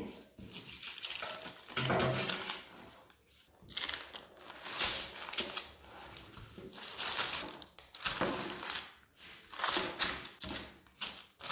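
Baking parchment paper rustling and crinkling in several uneven bursts as it is handled and dragged, with a pastry roll on it, onto a metal baking tray.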